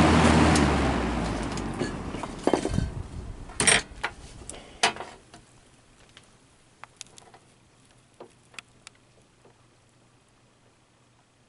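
Old Brentwood box fan coasting down after being switched off: its motor hum and blade air noise fade away over about five seconds. A few sharp knocks come along the way, between about two and a half and five seconds in, followed by faint scattered ticks.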